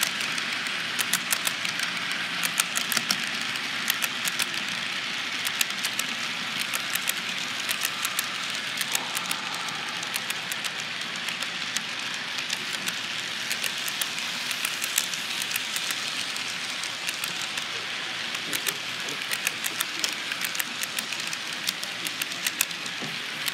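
HO-scale model freight train rolling past: a steady rolling hiss from the wheels on the track, with many rapid, light clicks.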